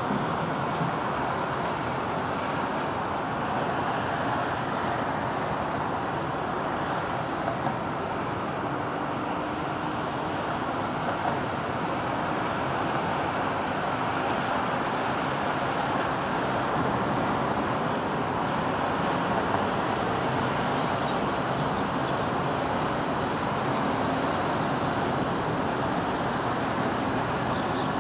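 Continuous road traffic noise: a steady rush of tyres and engines from vehicles passing on the road, with faint engine drones rising and fading as individual vehicles go by.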